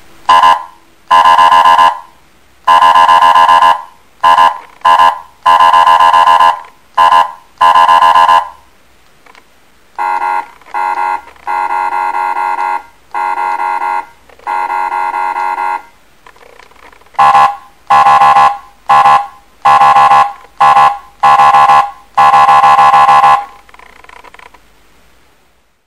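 ME-S100 100-watt electronic siren sounding a horn tone in bursts of short and long blasts: a steady, buzzing honk that never rises or falls in pitch. A somewhat quieter run of blasts comes about ten seconds in, and then the loud blasts resume.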